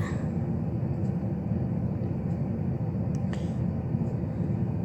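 Steady low background rumble with a few faint clicks of a plastic Rubik's Cube being twisted, about a second in and again around three seconds in.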